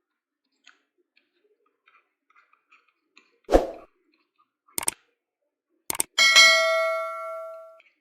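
A dull thud, two sharp clicks, then a bell-like ding that rings out for about a second and a half, typical of sound effects laid over on-screen exercise questions.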